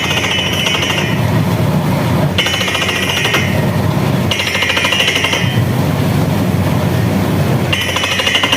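Borewell drilling rig hammering loudly and steadily, a fast continuous rattle, with a higher hiss that swells and fades several times.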